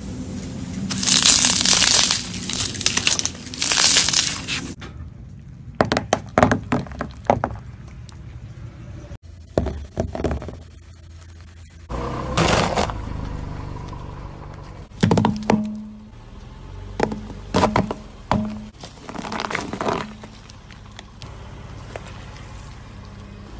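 Car tire rolling over and crushing small brittle objects one after another. There is a loud stretch of crunching and crackling in the first few seconds, as a row of styrofoam packing peanuts is flattened. After that come several separate runs of sharp cracks and snaps as other items break under the tire.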